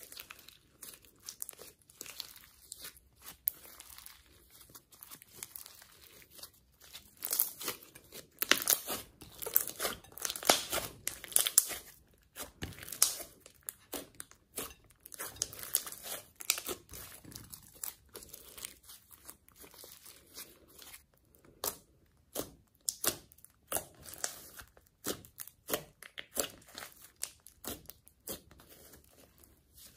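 Hands kneading and stretching glossy slime mixed with clay and glitter, giving irregular sticky crackling and clicking. The crackles come thickest and loudest about a quarter to two-fifths of the way in.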